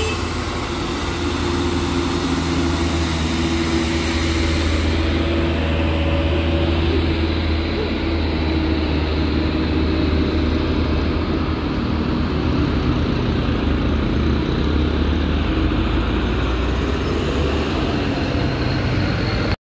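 Diesel engines of light trucks passing close by, a steady low engine drone over road noise. It cuts off suddenly near the end.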